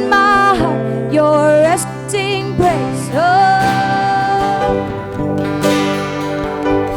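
Worship music: a singer holding long notes with a wavering vibrato, one drawn out for over a second, over steady accompaniment with guitar.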